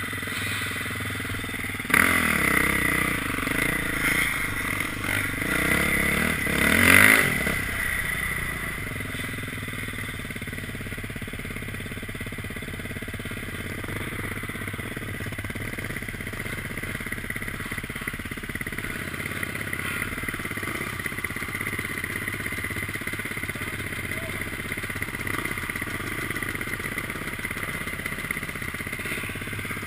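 Dirt bike engines pulling away, revving up and down through the gears and loudest about seven seconds in, then running steadily at trail-riding speed.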